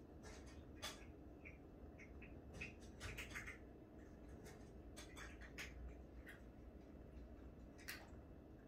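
Near silence with faint, irregular ticks and soft scratching from a cat's paws and claws kneading a shaggy plush bed.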